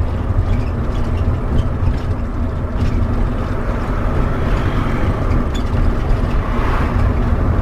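Converted bus motorhome driving on the highway: steady engine drone and road noise heard from inside the cab.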